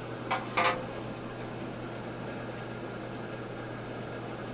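A steady mechanical hum with a hiss over it, and two short sharp clinks in quick succession within the first second.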